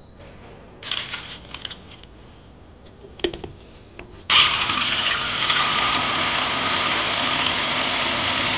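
Tap water running in a steady stream into an enamel tray of live blue crabs in a stainless steel sink, starting abruptly about four seconds in. Before it, a few brief rustles and a click.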